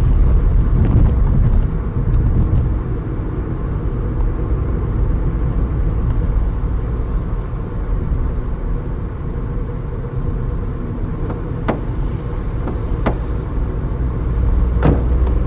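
Car driving sound effect: a steady low engine and road rumble, with a few sharp clicks in the last few seconds.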